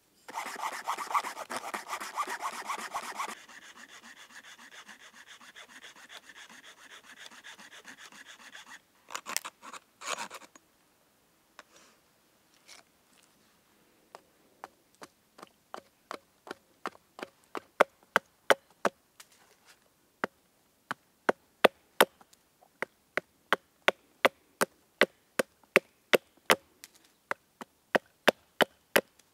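Rough rasping strokes, loud for a few seconds and then softer, followed about halfway by a quick, regular run of sharp wooden knocks: a hatchet bitten into a small stick and knocked down on a wooden chopping block to split kindling.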